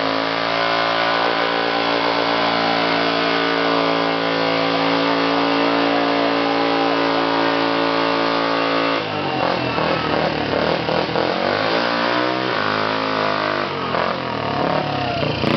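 Motorcycle engine held at high, steady revs for about nine seconds with the rear wheel spinning in the dirt in a burnout, then revving up and down unevenly.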